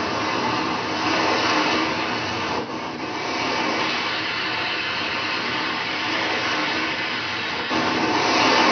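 Steady, dense hissing rush of a recorded water sprinkler spraying, part of a performance soundscape. It dips briefly about two and a half seconds in and swells near the end.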